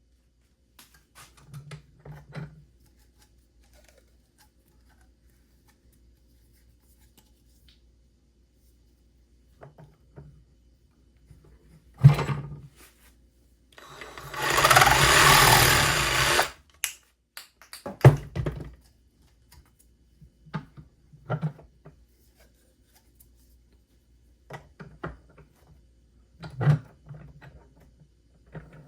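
Scattered knocks and clunks of the conduit and tools being handled on a bench, with one loud burst of cutting noise about halfway through, lasting a couple of seconds, as a length of plastic conduit is cut.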